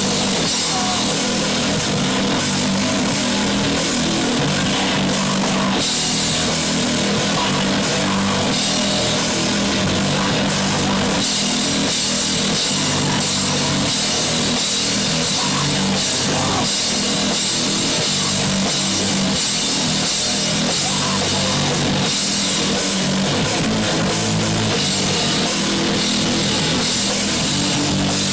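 Loud punk rock song played by a full band, with a drum kit and cymbals driving a steady beat under guitars.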